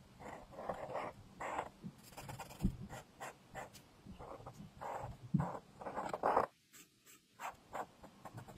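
Acrylic paint marker tip rubbing across paper in short repeated strokes, with two soft knocks among them and a short pause near the end.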